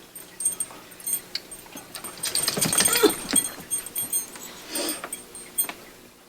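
A dog makes a few brief vocal sounds, about two and a half seconds in and again near five seconds, among scattered rustling and light clicks.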